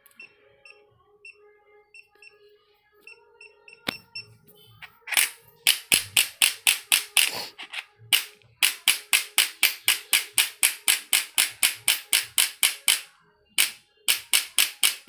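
Electric chiropractic adjusting gun: a run of short electronic beeps as its power setting is stepped down with the buttons, then the impulse head firing in rapid, even clicks, about three to four a second. The clicks break off briefly near the end and then resume.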